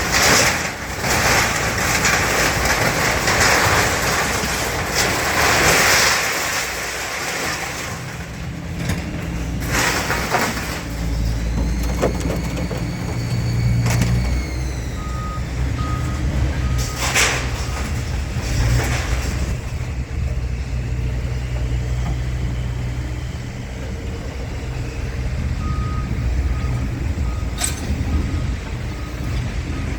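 Heavy diesel truck or yard machine running steadily, with loud hissing early on, a few sharp metal bangs, a brief rising-and-falling whine, and two short runs of reversing beeps.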